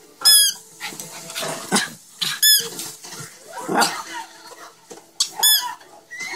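Two small Yorkshire terriers playing: a sharp, high squeak three times, two to three seconds apart, with rougher scuffling noises between.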